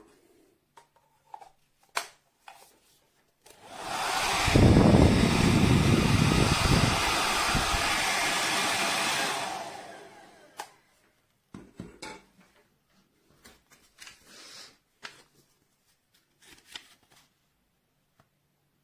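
DEWILY 1800 W ionic hair dryer switched on about three and a half seconds in, blowing steadily for about six seconds with a low rumble in its first few seconds, then switched off and winding down. Scattered small clicks and handling noises come before and after.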